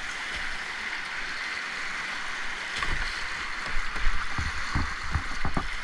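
Steady rushing hiss of whitewater rapids. About three seconds in, irregular low thumps and splashes from the kayak's paddle strokes start, as the boat pulls in beside a boulder.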